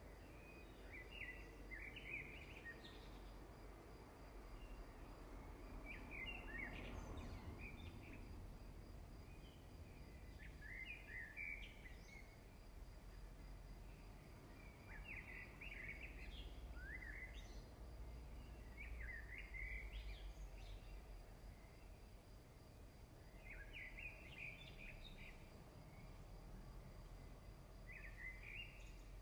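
Faint bird chirping: short twittering phrases repeat every four or five seconds over a low steady hum.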